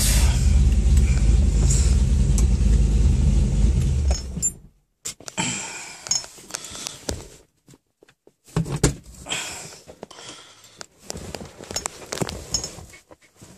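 Model T hot rod's engine idling with a steady low rumble, then switched off and dying away about four and a half seconds in. After it stops there are scattered small clicks and knocks.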